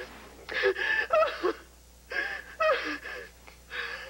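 A woman whimpering and gasping in her sleep, in three short breathy bursts with pauses between them: the sounds of someone in distress while asleep.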